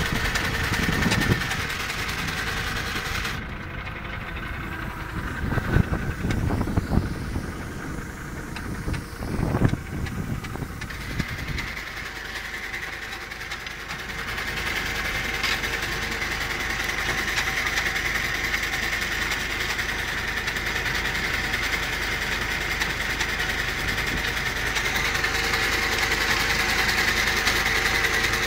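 An engine running steadily, with a constant high whine over the hum. In the first ten seconds there are also a few irregular knocks and bumps.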